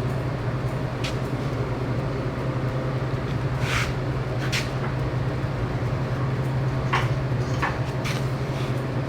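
Steady low hum of shop machinery, with a few scattered light knocks and clinks from workpieces being handled.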